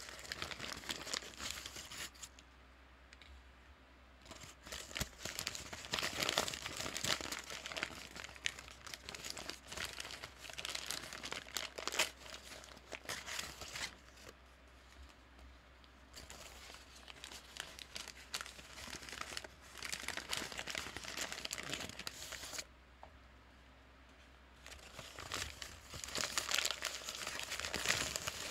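Paper bag being crinkled and crumpled by hand in irregular stretches, with three short pauses of about two seconds.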